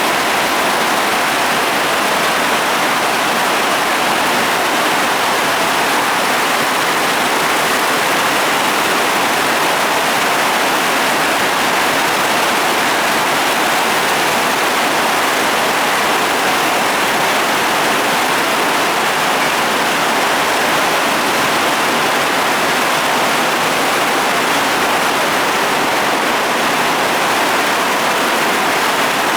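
Heavy tropical rainstorm pouring down, a loud steady hiss of rain.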